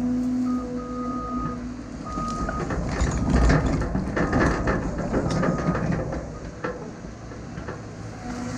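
Diesel earthmoving machine running, with short reversing-alarm beeps sounding on and off. In the middle comes a louder stretch of clanking and rattling, the machine working.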